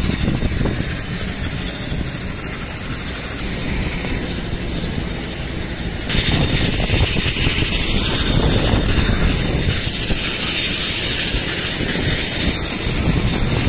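Aircraft engines running on an airport apron: a steady rushing noise with a thin, high, steady whine over it. It gets louder about six seconds in, where a second, lower whine joins.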